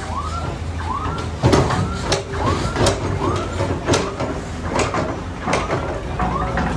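Heavy diesel engine of a mud-loading machine running steadily, with a warbling tone that rises and falls about every three-quarters of a second and a series of sharp knocks, the loudest about a second and a half in.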